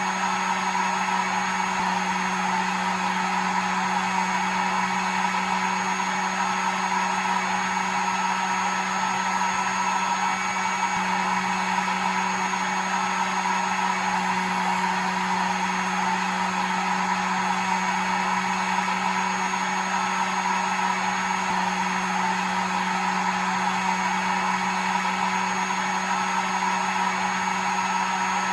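Hair dryer running continuously at a steady speed: an even blowing hiss over a constant low motor hum and a faint high whine.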